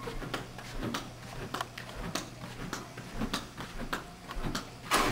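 Footsteps walking across a floor: irregular knocks and scuffs about three a second, with one louder knock near the end, over a steady low hum.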